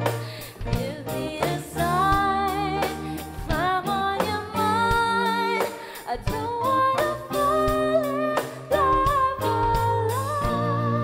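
A woman singing a song solo over backing music with drums and a steady beat.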